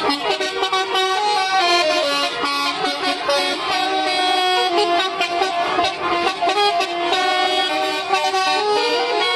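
A bus's telolet horn, a set of air-horn trumpets, plays a tune: a steady run of loud horn notes stepping up and down in pitch.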